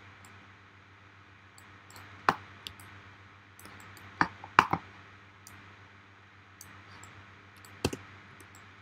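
A few scattered sharp clicks from a computer mouse and keyboard, one a little after two seconds, a quick cluster of three around four to five seconds, and one near the end, over a faint steady hum.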